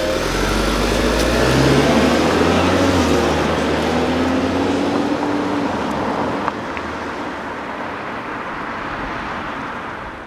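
2010 Volkswagen Tiguan's turbocharged four-cylinder engine pulling away and accelerating, its pitch rising in steps, with tyre noise on the road, growing fainter as the car drives off.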